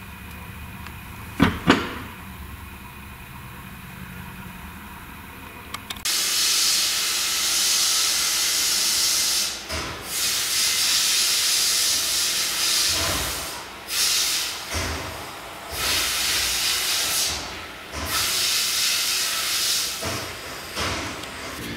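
Loud hissing that starts suddenly about six seconds in and goes on in stretches of two to three seconds with short breaks between them. Before it there is a low steady hum with two sharp clicks.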